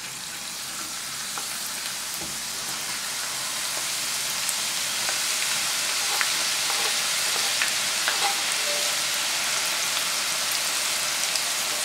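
Chopped onion sizzling in hot olive oil in a frying pan, growing louder over the first several seconds as more onion goes in, then holding steady. A few light clicks come from the wooden spoon stirring it.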